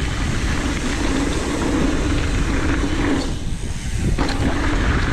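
Mountain bike rolling fast down a dirt jump line: the tyres rumble steadily over the dirt while wind buffets the microphone.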